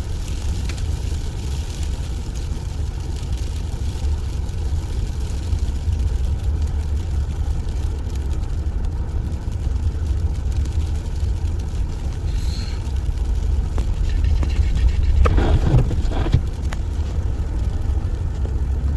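Steady low rumble of a vehicle's engine and tyres, heard from inside the cabin while driving slowly on a snow-covered road. A brief louder, rougher patch comes about fifteen seconds in.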